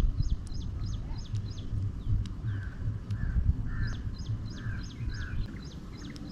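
Birds calling: a series of short, high, sharp notes about three a second, repeated twice, with five lower notes in between, over a low rumble.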